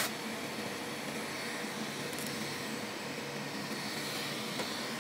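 Steady, even hiss of room background noise, with a light click at the very start.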